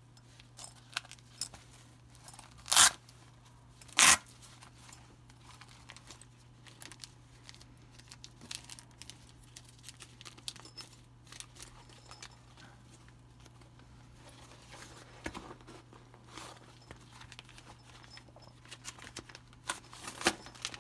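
Handling noise from a nylon map case: scattered small clicks and fabric rustles, with two short loud noises about three and four seconds in. Near the end the rustling gets busier as paper and a clear plastic sheet crinkle. A faint low hum runs underneath.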